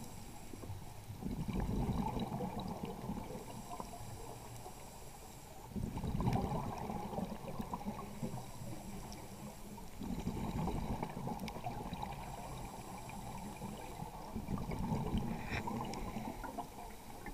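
Scuba diver breathing through a regulator underwater, four breaths about every four seconds. Each breath is a thin, whistling hiss on the inhale, then a low rumbling gurgle of exhaust bubbles.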